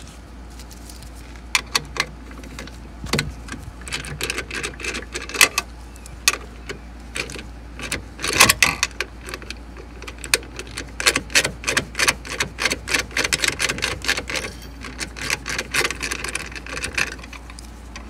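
Hand socket ratchet clicking in quick runs as it is worked back and forth to loosen a seatbelt retractor mounting bolt, with one louder metallic clack about halfway.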